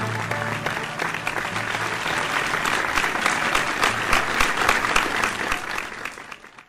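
Crowd applause, many hands clapping, swelling and then fading away near the end.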